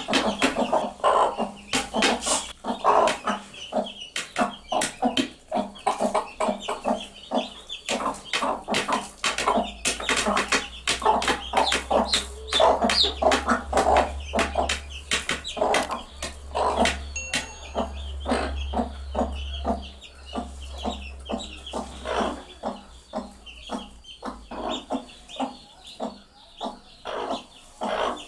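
Broody mother hens clucking in rapid short calls, a food call to their chicks, mixed with sharp taps of beaks pecking at a plate.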